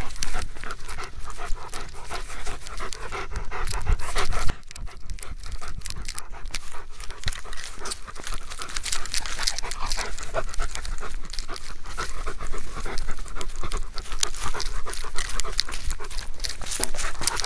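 Search dog panting fast and hard right against a harness-mounted camera's microphone, mixed with knocks and rubbing from its movement. The panting drops in loudness about four and a half seconds in.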